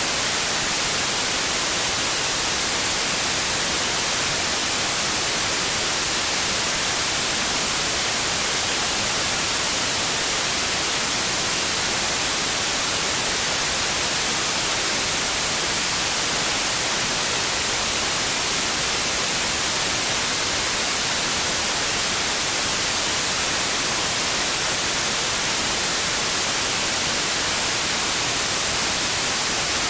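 Steady white noise: an even, unchanging hiss, brightest in the highs, with no variation or other events.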